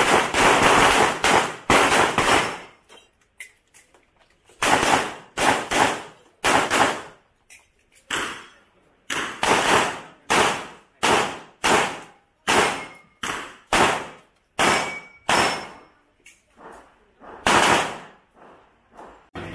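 Pistol fired in fast strings of shots during an IPSC stage run. Each shot is sharp with a short fading tail, and there are brief pauses between strings. The last lone shots come near the end.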